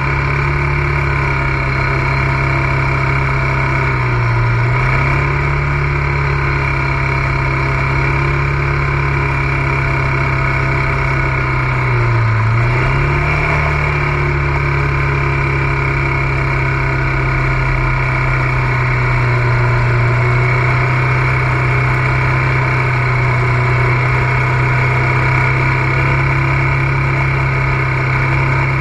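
ATV engine running steadily under way. Its pitch dips briefly and comes back up twice, about four seconds in and again about twelve seconds in.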